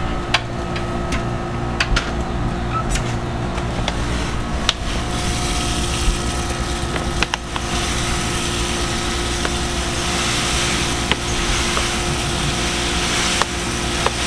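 Crushed malt grain pouring in a steady hiss into hot water in a stainless brew kettle, starting about five seconds in, over a steady machine hum from the electric brewing system. Early on, a few sharp metal clinks as the stainless mesh basket is set into the kettle.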